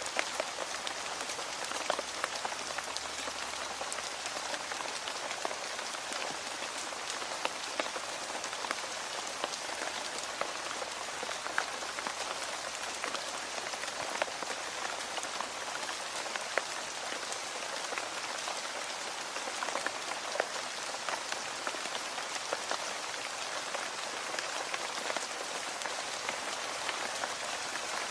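Steady rain falling on a hard surface, an even hiss with scattered sharp drop impacts.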